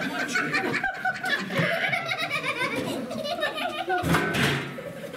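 Diners laughing and talking, with music under it. About four seconds in, a short scraping clatter as a metal folding chair is moved.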